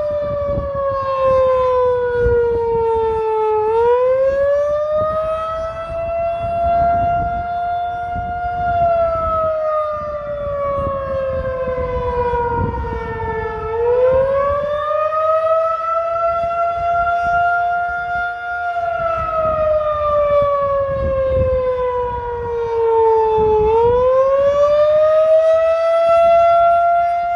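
Federal Signal 2001-SRN outdoor warning siren sounding the attack signal: a loud wail that slides down in pitch for several seconds, climbs back and holds briefly, repeating about every ten seconds.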